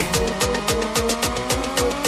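Electronic background music with a steady, fast beat and a slowly rising synth tone.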